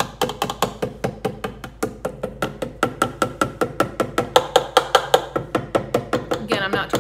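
A nearly empty mustard container being banged over and over to knock mustard out: rapid, even knocks, about six a second, each with a short hollow ring.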